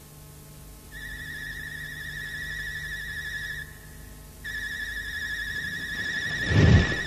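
A high, slightly wavering whistle-like tone sets in about a second in and is held for about two and a half seconds. It breaks off briefly, then returns and holds. A deep thud comes near the end and is the loudest sound.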